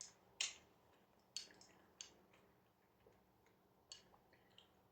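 A few faint, sharp clicks and taps, about four spaced a second or so apart, from small objects and packaging being handled.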